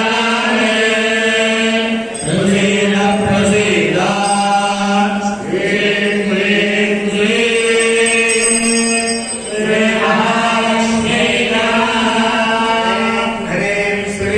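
A group of priests chanting mantras in unison into microphones, held on one steady reciting pitch, with a short pause for breath every three to four seconds.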